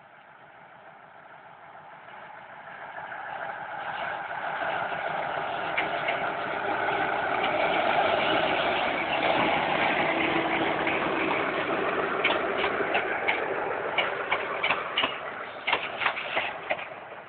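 Diesel locomotive hauling a passenger train approaches, its engine growing steadily louder until it passes close by about halfway through. The coaches then roll past with a rhythmic clacking of wheels over rail joints, sharper and more spaced near the end.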